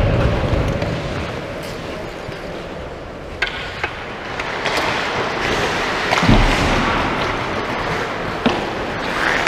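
Ice hockey rink sounds: a steady scraping hiss of skates on the ice, broken by a few sharp clacks of sticks and puck and one dull thump a little past the middle.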